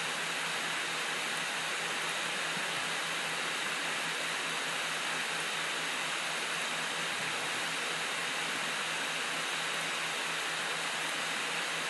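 Steady background hiss with a faint low hum underneath, unchanging throughout; no clicks or other events stand out.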